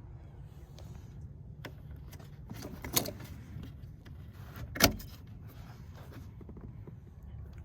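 Hand tools and parts being handled during work on a car battery: a few metallic clinks and knocks, the loudest two about three seconds and five seconds in, over a steady low rumble.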